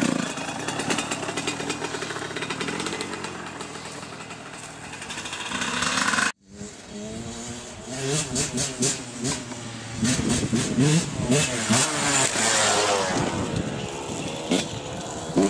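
TM 125 two-stroke dirt bike engine revving as the bike pulls away, its pitch climbing toward the end of the run. After a sudden cut, an off-road motorcycle engine revs up and down again and again, louder in the second half.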